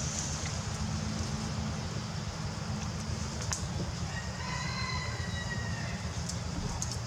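One drawn-out animal call, starting a little past four seconds in and lasting about a second and a half, over a steady low rumble.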